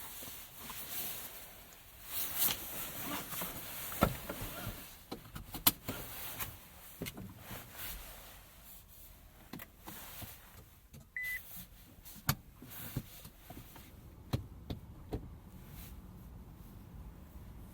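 Scattered clicks and light knocks of a car's cabin controls being handled, in a quiet interior, with one short beep about eleven seconds in.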